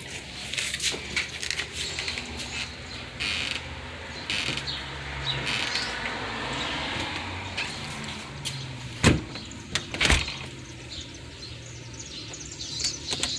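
Door handle and lock hardware being handled and fitted on a door: scattered clicks, with two sharp knocks about nine and ten seconds in, over a low steady hum.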